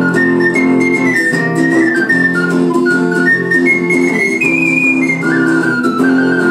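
Harmonica playing a tarantella melody in short stepping notes over strummed acoustic guitar chords, settling into a long held note near the end.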